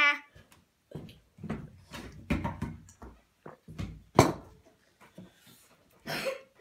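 A person gulping water from a glass and breathing in short, irregular, noisy gasps through the mouth, with a short vocal sound at the start and one sharper, louder gasp about four seconds in: a reaction to the burn of crushed red pepper.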